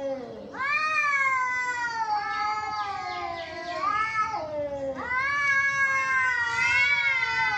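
Two cats yowling at each other in a fighting standoff: long, wavering caterwauls that slide down in pitch, at times overlapping, with a brief break about half a second in and another around five seconds in.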